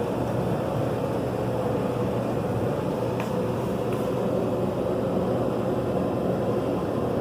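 A steady machine hum, with two faint clicks about three and four seconds in.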